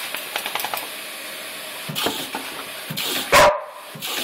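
Water hissing from a hand-held spray nozzle into a plastic bucket while a border collie laps and snaps at it, making rapid wet clicks and knocks against the bucket. One short, loud cry about three and a half seconds in.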